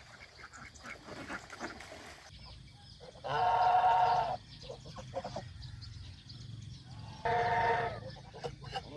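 A domestic goose calling twice: two long honks held at a steady pitch, the first about a second long and the second shorter, a few seconds apart.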